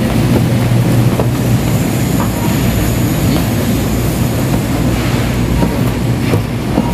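Plastic shopping trolley's wheels rolling over a tiled supermarket floor: a steady low rumble with light rattling clicks.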